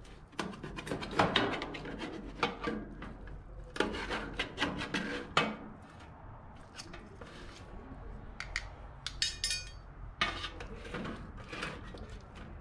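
A knife cutting through a rack of ribs and metal tongs clicking and scraping against a steel pan: a busy run of scrapes and clicks for about five seconds, then sparser clatter with a short quick rattle of strokes near the middle.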